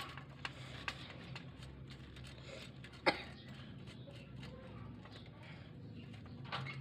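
Scattered light clicks and one sharper knock about three seconds in, from small hardware being worked on a steel folding drying rack as a nut is taken off, over a steady low hum.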